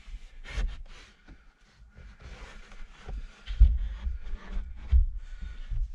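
An overhead cabin panel being pushed and shifted by hand as it is worked into its opening: irregular knocks, scraping and rubbing, with two heavier thumps, one a little past halfway and one near the end.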